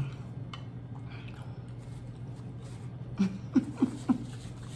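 A person eating ramen noodles: quiet chewing, then a few short hummed sounds of enjoyment about three seconds in, over a steady low hum.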